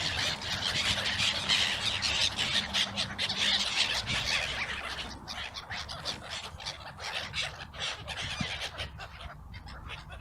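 A flock of water birds calling loudly over one another as they crowd in to eat thrown bread. The calling is densest in the first half and thins out after about five seconds.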